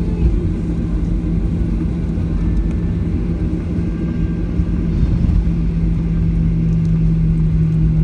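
Cabin noise of a Boeing 737-800 on the ground after landing: a steady low rumble with a constant hum from its CFM56-7B engines as it taxis.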